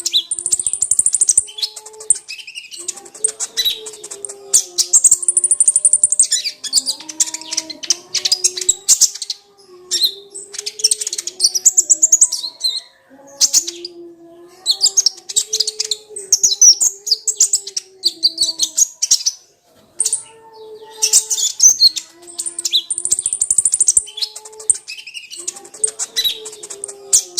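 Kolibri ninja sunbird song: rapid, high, chattering trills in bursts of a few seconds with short pauses between, over a lower wavering line of tones.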